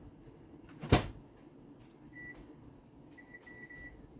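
Microwave oven door shut with a loud clunk about a second in, then the keypad beeping: one beep, then a quick run of about four as the cooking time is keyed in.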